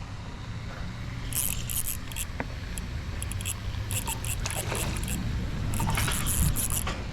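Fishing reel clicking in short bursts as a channel catfish is fought on a light rod, over a steady low rumble.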